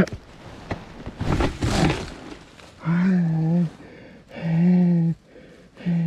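A man groaning in pain: harsh gasping breaths about a second in, then three long, low moans held at one pitch. He is winded after a motorcycle crash, with injured ribs.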